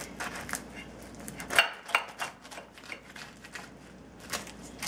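A knife sawing through a tall stacked burger on a ceramic plate, with scattered scrapes and clicks of the blade against the plate, the sharpest about one and a half to two seconds in.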